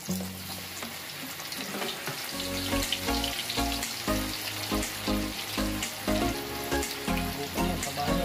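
Breaded chicken fillets deep-frying in a wok of hot oil, a steady sizzle. Background music with a steady beat comes in about two seconds in.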